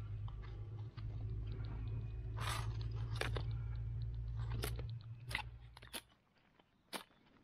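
Dry, crumbly soil crunching and crackling as a hand breaks up and pulls out clods at the mouth of a burrow, with a few sharp louder cracks. A low rumble underneath fades out about five to six seconds in.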